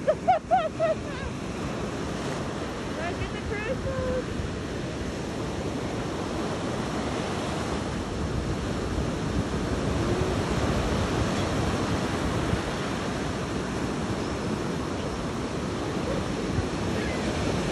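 Ocean surf: waves breaking and washing up the sand in a steady rush, with wind buffeting the microphone. A brief raised voice right at the start is the loudest moment.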